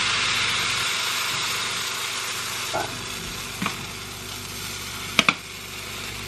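Pancake batter sizzling as it is poured onto a hot nonstick elephant-shaped pancake pan, the sizzle slowly dying down; the pan is hot enough that a lower heat is called for. A few sharp clicks come in the second half.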